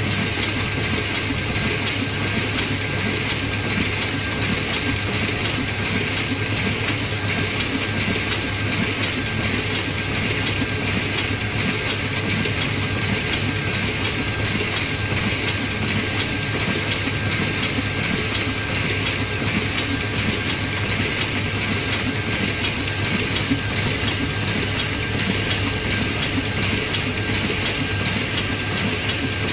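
Zhongye sheet-fed offset printing press running steadily, feeding and delivering printed sheets: an even mechanical running noise with a low hum underneath and a faint steady whine.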